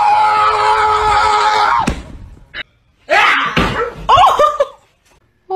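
A loud, long scream on one held pitch that breaks off suddenly about two seconds in. After a short pause comes a burst of wavering yells.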